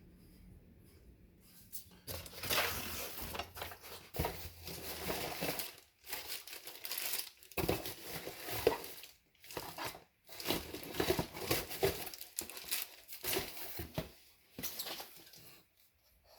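Irregular crinkling and rustling handling noise in bursts of a second or two with short pauses, starting about two seconds in.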